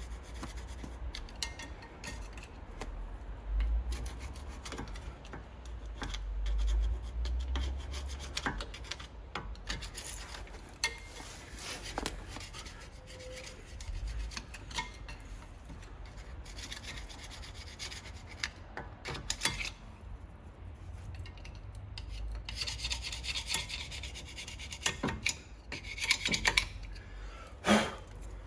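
Screwdriver tip scraping along the stainless steel pad guide strips either side of a Brembo brake caliper, cleaning off rust and old pad material. It goes in irregular bursts of rasping, with scattered metallic clicks and taps, and the longest spell of scraping comes in the second half.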